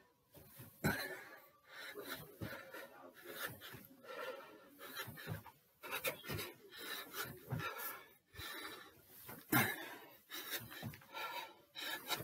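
A man panting and breathing hard during a set of box jumps, with a few dull thumps as his feet land.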